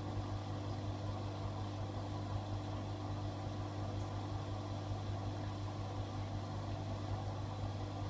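AEG Öko-Lavamat 88840 front-loading washing machine filling with water for its softener rinse: water running steadily into the drum over a steady low hum.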